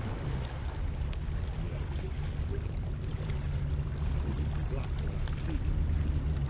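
Boat motor idling, a steady low hum.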